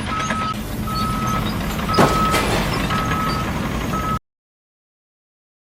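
A vehicle's reversing alarm beeping about once a second over a running engine, with a single knock about two seconds in. The sound cuts off abruptly after about four seconds.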